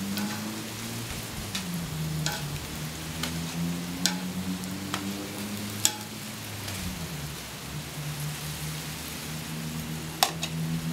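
Oiled corn tortillas and carne asada sizzling on a hot Blackstone steel griddle, with a metal spatula and tongs clicking and scraping sharply on the griddle top about seven times, loudest near six seconds and near the end. Under it runs a steady low droning hum that drops in pitch a couple of times.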